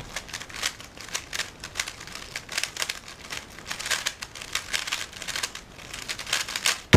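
A 3x3 speed cube turned very fast through a speedsolve: a rapid, irregular clatter of clicking layer turns. It ends in one loud, sharp knock as the solve is finished and the timer is slapped.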